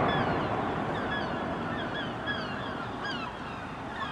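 Low rumble of a demolished tower block's collapse dying away, with many birds calling overhead in short, falling cries, likely startled by the blast.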